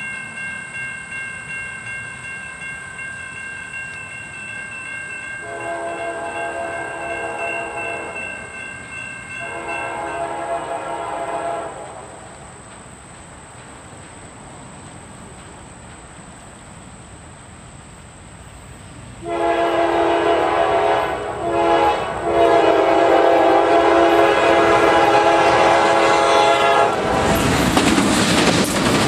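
Crossing bell ringing. The air horn of a Norfolk Southern GE Dash 8-40CW locomotive then blows for the crossing: two long blasts about five seconds in, and a longer sequence of long and short blasts from about nineteen seconds. Near the end the lead locomotive passes close, and its diesel engine and wheels become the loudest sound.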